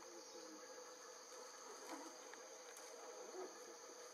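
Faint forest background of insects buzzing steadily, a high-pitched drone with a lower hum beneath it and a few soft ticks.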